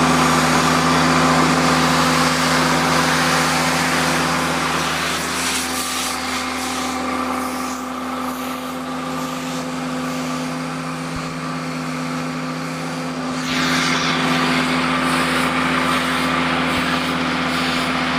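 Diesel engine of a hydraulic pressure washing rig running at a steady speed, with a hiss over it. The hiss eases about five seconds in and comes back suddenly in the last third.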